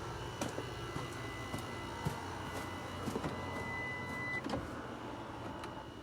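Car power seat's electric motor running with a steady whine for about four seconds, then stopping, with light clicks and knocks around it.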